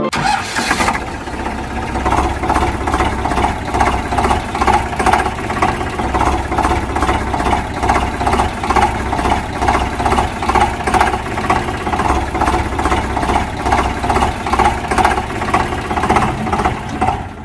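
Engine running with a steady, even chug, about three beats a second, starting and stopping abruptly.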